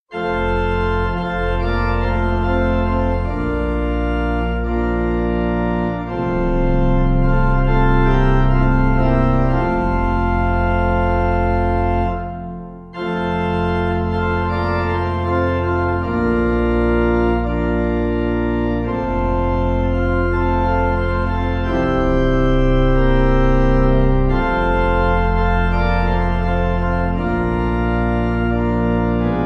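Organ music: slow, sustained chords that change every second or two, with a brief break about halfway through.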